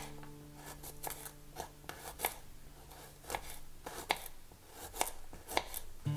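Kitchen knife slicing garlic cloves on a wooden cutting board: a quick, uneven run of taps, about three or four a second, as the blade cuts through each clove and meets the board.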